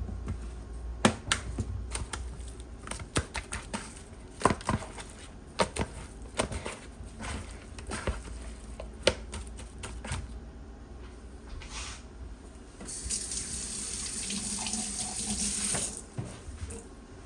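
A string of light clicks and knocks from handling kitchen things, then a kitchen tap runs steadily for about three seconds near the end and shuts off.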